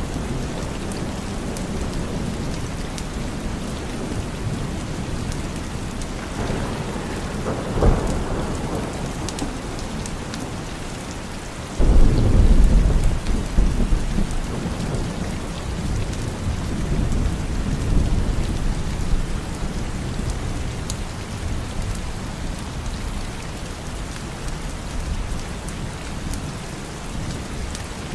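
Steady heavy rain with thunder: a short crack about eight seconds in, then a loud thunderclap about twelve seconds in that rumbles on for several seconds.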